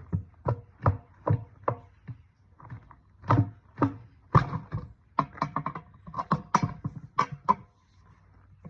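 Tire irons knocking and scraping against a steel trailer rim as the bead of a 7-14.5 tire is levered off by hand. The strikes come in a quick run of about two to three a second, then in irregular clusters, some with a brief metallic ring.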